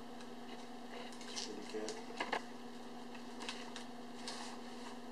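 Packaging being handled: a few short crinkles and rustles, spread out about a second apart, over a faint steady hum.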